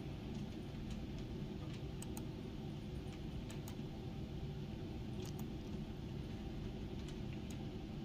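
Scattered light computer-mouse clicks, about ten of them at uneven intervals, over a steady low hum.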